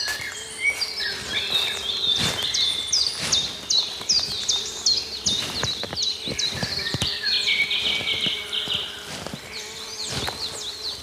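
Forest ambience: songbirds singing a run of quick, sharp, repeated high notes, with a fast trill in the middle, over scattered footsteps crunching on the forest floor. A faint steady insect buzz sits underneath for a few seconds.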